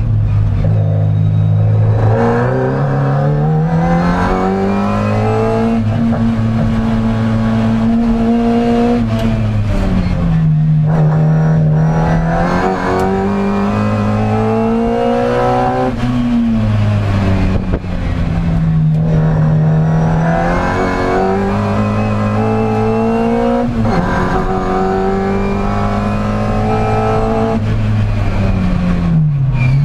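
Classic Mini race car's A-series four-cylinder engine heard from inside the cabin, revving hard and then easing off again and again as it is driven flat out through the course. The pitch climbs in long rising sweeps and drops back several times, with a sharp drop and recovery near the end.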